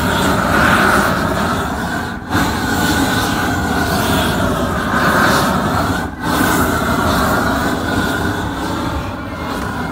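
Propane roofing torch burning with a steady rushing sound as it heats the overlap of modified bitumen membrane to weld the seam, breaking off briefly twice.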